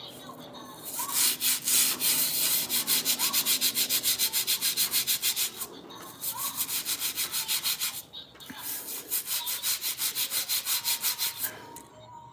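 Fast back-and-forth scrubbing of a hard floor by hand, about five or six strokes a second, in two long runs with a short break in the middle.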